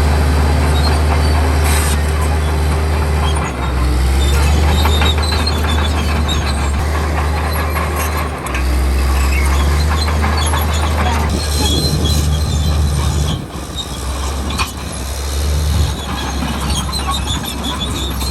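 Komatsu D65E crawler bulldozer working, its diesel engine running steadily under load while the steel tracks clank and squeal. The engine note shifts twice in the first half.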